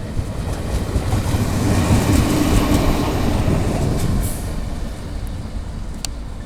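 A locomotive passing on the rails, its rumble swelling to a peak about two seconds in and easing off after about four seconds.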